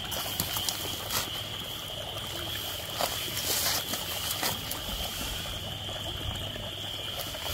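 Small woodland stream trickling through a culvert pipe, with a steady high-pitched chorus of frogs behind it and a few brief clicks.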